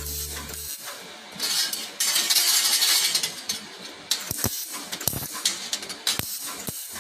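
Clinking and clattering of hard objects, with a couple of seconds of hissing noise and then a few sharp clicks.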